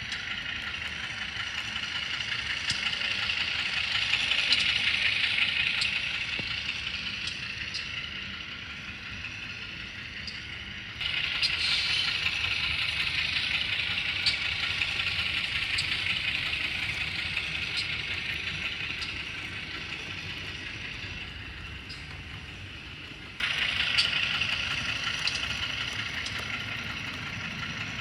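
Digital sound unit in an HO-scale CC206 model locomotive playing a diesel engine running sound through its small speaker, thin and tinny, with faint ticks. The sound jumps abruptly louder about 11 seconds in and again about 23 seconds in.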